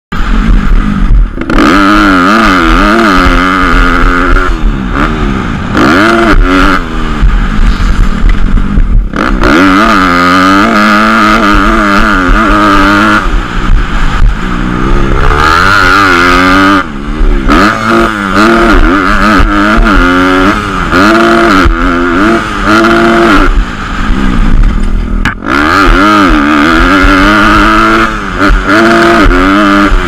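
Motocross dirt bike engine heard from on board, revving up and down as the rider works the throttle around the track, its pitch rising and falling constantly. The sound cuts back sharply three times as the throttle is shut.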